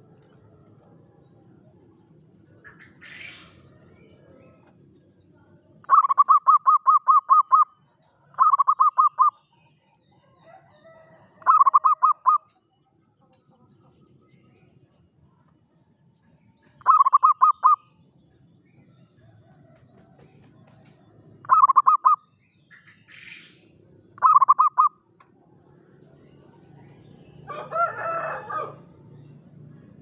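Zebra dove (perkutut) giving six short bursts of rapid, evenly spaced staccato coo notes, each about a second long. Near the end a rooster crows, and a small bird chirps faintly twice.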